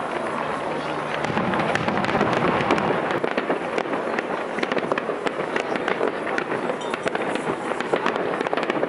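Fireworks display: many aerial shells bursting with a dense, continuous crackle of sharp cracks, getting louder about two seconds in.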